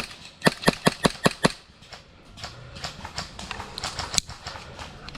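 Airsoft gun firing: a single sharp shot, then a quick string of about six shots in a second, followed by fainter scattered clicks.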